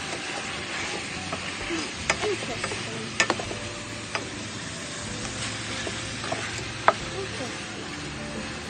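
Chicken and pork pieces sizzling in a stainless steel pot as a ladle stirs them. A few sharp clicks of the ladle against the pot stand out over the steady hiss, the loudest near the end.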